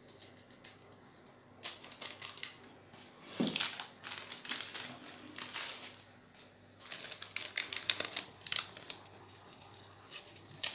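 Small paper sachet of vanillin being handled and torn open: scattered rustles and sharp crackles, busiest in the second half.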